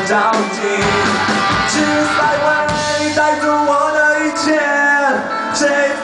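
Rock band playing live: a singer over guitar, with cymbal hits recurring through the passage.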